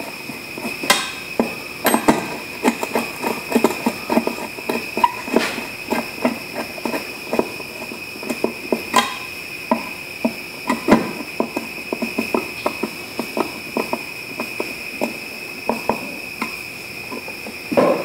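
Screwdriver turning the cable-clamp screw on a steel electrical box: many small, irregular metal clicks and scrapes, several a second. A steady high-pitched whine runs underneath.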